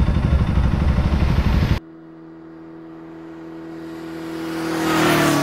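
A loud, low, fluttering rumble cuts off abruptly about two seconds in. It gives way to the logo sound: a hum of steady tones with a whoosh that swells to a peak near the end, the pitch dropping slightly as it peaks, like a vehicle passing by.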